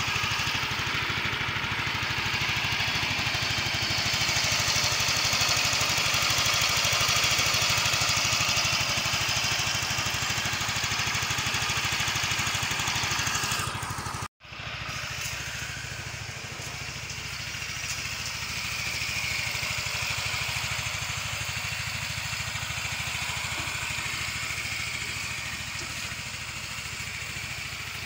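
Yamaha Mio 125's single-cylinder four-stroke engine idling steadily and smoothly on its freshly replaced cam chain tensioner, with no chain rattle, and a brief break about halfway.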